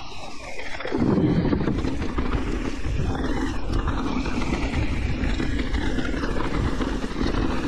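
Electric mountain bike riding down a rough dirt trail: tyres rolling over the ground and the bike rattling, with wind buffeting the microphone. It gets louder about a second in.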